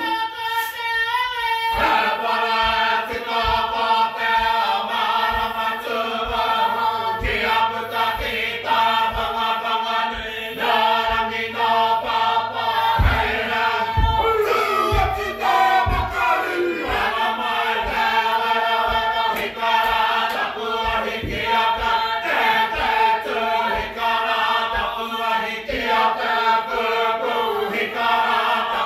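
Māori cultural performers singing together as a group, a traditional song (waiata), carried over a beat of regular low thumps.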